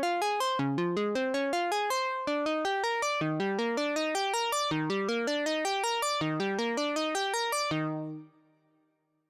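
Elektron Analog Keys analog synthesizer, on a patch recreating the Roland Juno-60 sound, playing a fast arpeggio of short plucky notes, about five a second, running up and down in pitch. Near the end it stops, and the last low note fades into silence.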